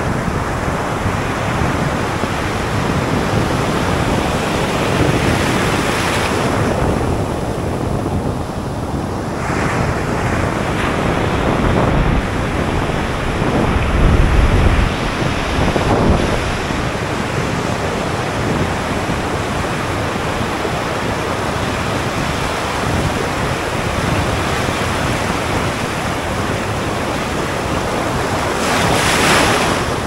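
Ocean surf: low waves breaking and shallow swash washing in and out, recorded at water level so the foamy water runs right past the microphone. A heavy low rumble comes about halfway through, and a louder rush of water near the end.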